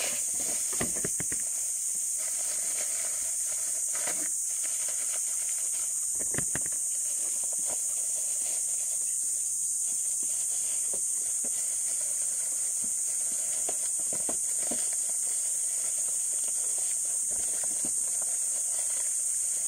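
Steady high-pitched insect drone, with intermittent crinkling and rustling of a plastic courier mailer being handled and torn open near the end.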